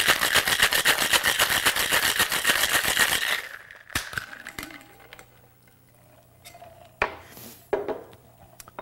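Ice rattling hard in a Boston shaker (mixing glass over a metal tin), about six or seven shakes a second, stopping abruptly about three seconds in. A few separate clinks and knocks of glass and metal follow.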